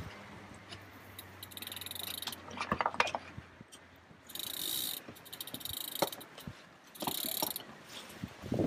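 Sailboat winch ratcheting in three runs of rapid clicking as a line is winched in, with scattered knocks of gear on deck between them.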